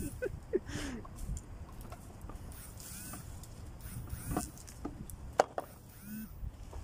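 Cut leafy tree branches being raked and dragged across grass: scattered rustles, scrapes and clicks, with a sharp click about five seconds in, over a low rumble and a few short squeaky chirps.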